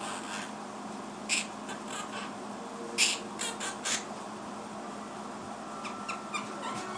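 Quaker parrot (monk parakeet) giving short, sharp chirps and clicks: one about a second in, a cluster of several around three to four seconds in, and fainter ones near the end.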